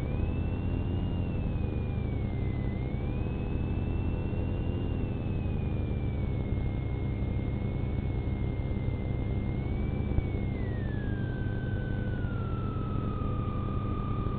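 Steady low rumble of a police car's dashcam audio, with a single whistling tone that wavers up and down in pitch and slides lower near the end.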